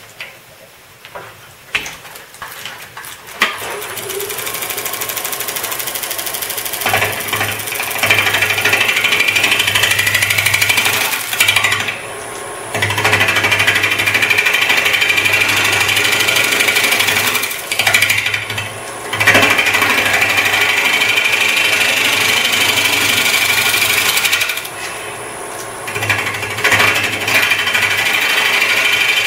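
Wood lathe turning a large ash bowl blank while a turning tool cuts the outside, making a loud, steady cutting noise over the hum of the lathe. The cutting drops away three times, as the tool comes off the wood, and starts again. A few knocks come first, and the running sound starts a few seconds in.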